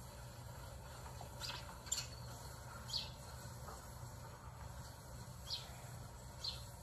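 A small pet monkey's faint, short, high-pitched chirps, about five of them at uneven intervals, over a low steady hum.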